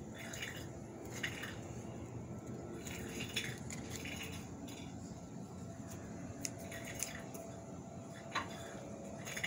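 Dry orchid roots and fibrous potting material rustling and crackling as they are pressed by hand onto a tree cutting, with a few sharp clicks scattered through.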